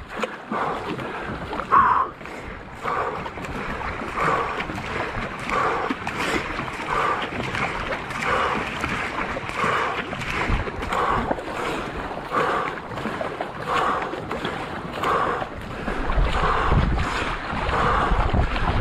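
Paddle strokes of a marathon racing canoe, about three strokes every two seconds, over the steady wash of water along the hull. Near the end, wind rumbles on the microphone.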